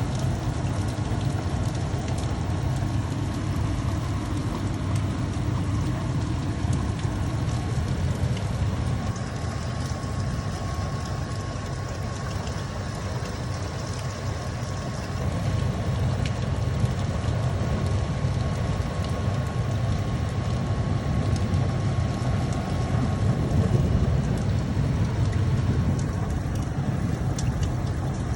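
Steady rain with a constant low rumble beneath it and a faint steady high tone.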